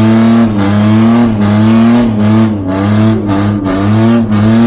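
Ford Ranger's 3.0 V6 engine running at high revs under load, its pitch dipping briefly and recovering again and again.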